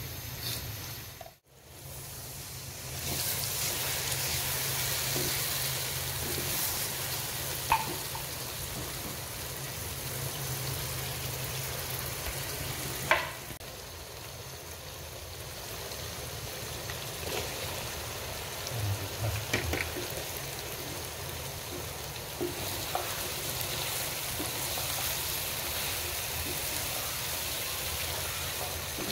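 Onion-tomato masala sizzling in oil in a wok, a steady frying hiss, with cut okra tipped in and stirred with a spatula. A few sharp knocks of utensil on the pan. The sound cuts out briefly near the start.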